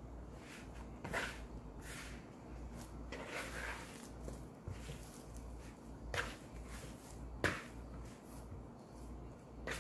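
Hand kneading soft flour dough in a plastic mixing bowl: quiet squishing with a few scattered knocks of hand and bowl, the loudest about seven and a half seconds in.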